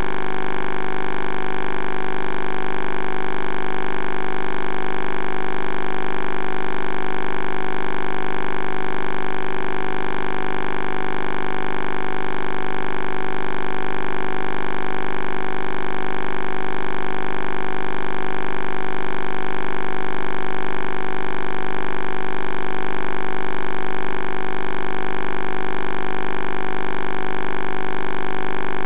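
A loud, steady hum made of several fixed tones, unchanging throughout.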